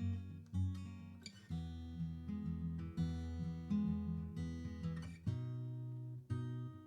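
Acoustic guitar strummed in a repeating pattern, changing chord about a second and a half in and again near the end: the instrumental intro of a song.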